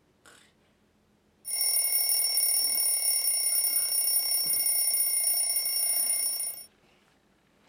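An alarm bell ringing steadily for about five seconds, then cutting off suddenly. A faint short click comes just before it.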